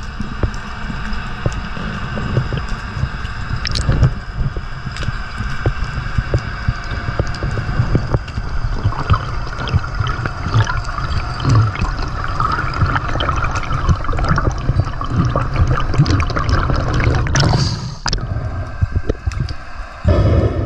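Water rushing and gurgling around an underwater camera as a freediver swims, with many scattered clicks and crackles.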